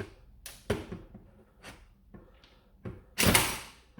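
Clicks and knocks of plastic parts being handled on a Worker Phoenix toy blaster with a 3D-printed kit, with a louder sliding scrape about three seconds in as a part is pulled down.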